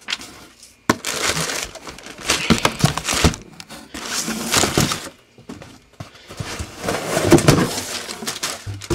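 Cardboard packaging and plastic wrap rustling and crinkling in irregular bursts, with a few knocks, as a boxed air compressor is pulled out of its shipping carton.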